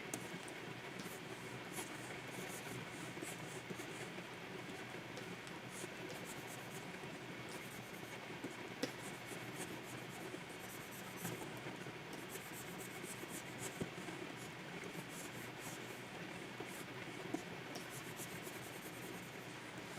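Stylus nib scratching and gliding across the surface of a Wacom 24 Pro pen display in short strokes, with a few light taps of the pen.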